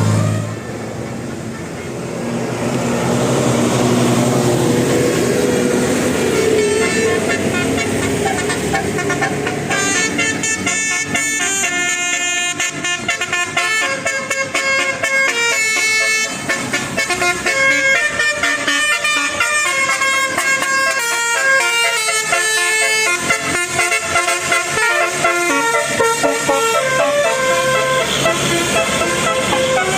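A bus's telolet basuri horn, a multi-trumpet musical horn, with vehicle noise. About ten seconds in it starts a quick tune of short notes that keep jumping in pitch.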